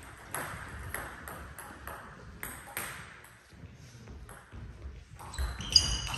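Table tennis rally: the ball ticks sharply off the bats and the table, about two hits a second. Near the end the sound grows louder, with a few high squeaky tones.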